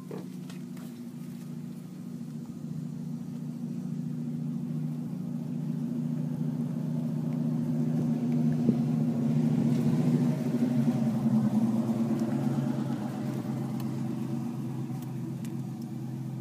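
A motor engine runs steadily at an even pitch, growing louder toward the middle and then easing off.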